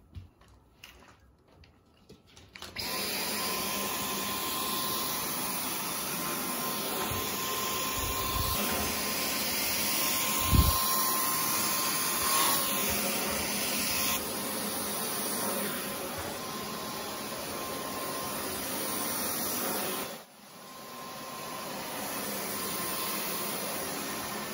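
Cordless stick vacuum running over a shag rug: a steady whir with a faint high whine that starts a few seconds in, cuts out briefly near the end and starts up again.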